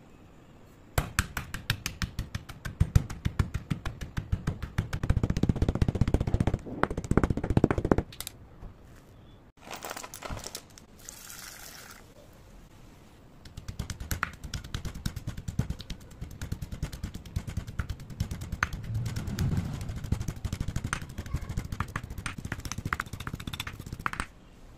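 Chalk pieces crushed with a stone pestle in a stone mortar: rapid, dense tapping and crunching for several seconds. After a pause there is a brief watery sound, then a longer run of pounding as soaked white chalk is ground down to powder.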